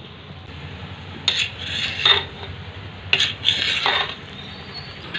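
A metal spoon scraping and clinking against the side of a large metal pot while cooked biryani rice is turned over and mixed. Two strokes, about a second and a half apart, each opening with a clink and trailing into a scrape.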